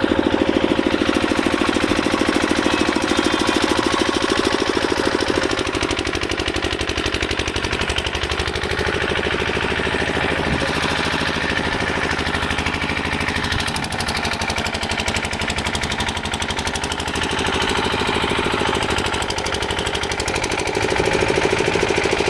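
An engine running steadily with a fast, even knocking pulse.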